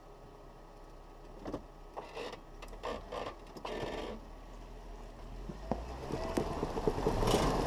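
Jeep Wrangler Rubicon crawling slowly over a rocky trail: the tire crunches and scrapes over rock and gravel with scattered knocks and clicks, building to a dense crackle of crushed stones near the end as the tire drops off a ledge, over a steady low engine rumble.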